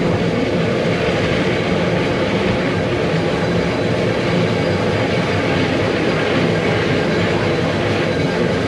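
Mount Washington Cog Railway train climbing on its rack-and-pinion track, a steady, unbroken running noise of the locomotive and coach.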